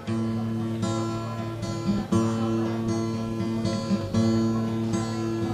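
Background music: acoustic guitar strumming a steady run of chords, the instrumental lead-in to a sung folk song.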